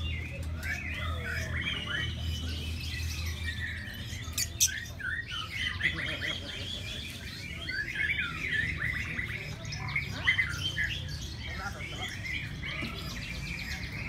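Caged lovebirds chirping and trilling, many high, quick, overlapping calls, with a few sharper, louder calls standing out.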